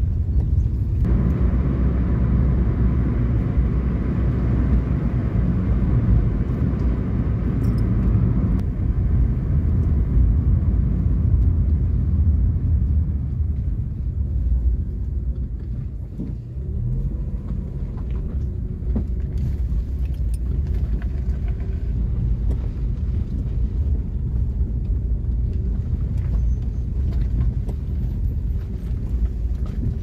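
Car cabin noise while driving: a steady low rumble of engine and tyres, with a rushing tyre noise that drops away about eight seconds in. After that the car goes on over a broken, potholed gravel road, with occasional short knocks and rattles.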